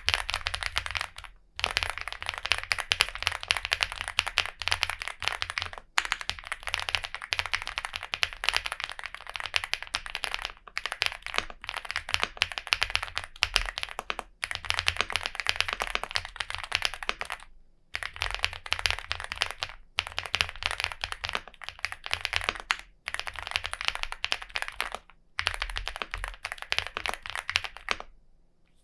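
Chilkey ND75 mechanical keyboard being typed on fast, with the case dampened by silica gel particles: dense key clacks in runs of a few seconds with brief pauses between, stopping just before the end.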